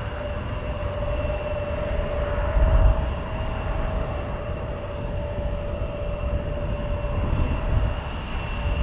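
Jet airliner engines running with a steady whine, heard over wind gusting on the microphone.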